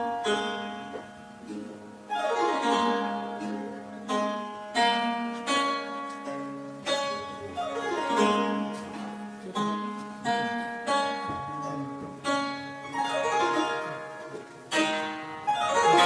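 Chaozhou zheng (Chinese plucked zither) solo: plucked notes ringing and decaying, with sweeping glissandi across the strings a few times.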